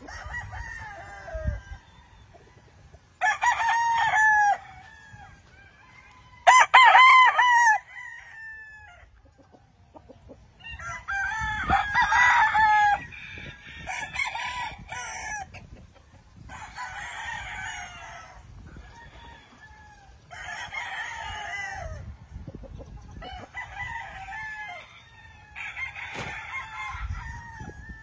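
Gamefowl roosters crowing, one after another: two loud crows about three and six seconds in, then from about eleven seconds on a run of crows from several birds, quieter and often overlapping.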